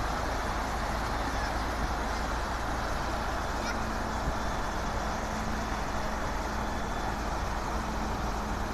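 Diesel engines of a wheel loader and a dump truck running steadily under a constant rushing hiss. A steady engine hum comes in about four seconds in, as the loader raises its bucket of rock over the truck bed.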